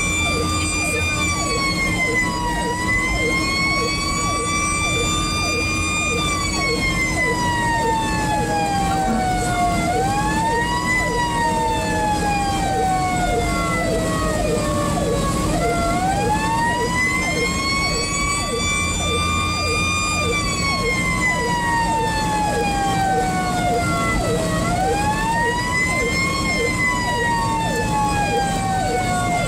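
Fire engine's siren, heard from inside the cab. Its pitch rises quickly and then falls slowly over several seconds, over and over, with the truck's engine running underneath.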